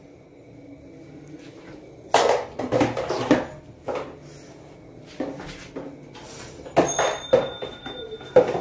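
Clattering and knocking of hard objects being handled, in several irregular bursts that begin about two seconds in.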